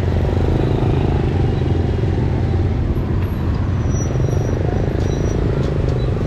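Motorbike and street traffic close by: small engines running, an unbroken low hum.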